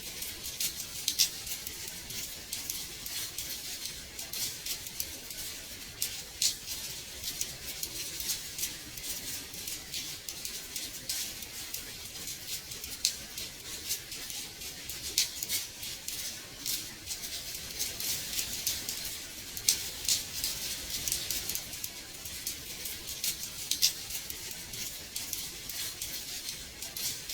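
Steady gentle rain on a window pane: a soft high hiss with many small drop taps scattered through it, some louder than others.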